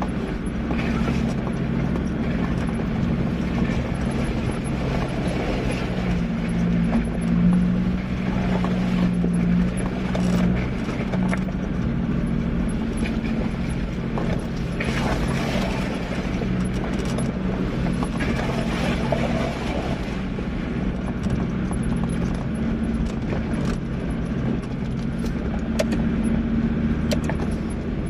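4x4 engine running at low, steady revs as the vehicle crawls over a rough, stony, puddled track, with scattered rattles and clicks from the bodywork and suspension jolting over the stones.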